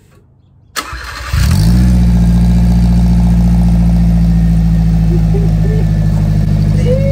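Subaru Sambar's rear-mounted four-cylinder engine cranked by the starter, catching about a second in and settling into a steady idle through its newly fitted exhaust.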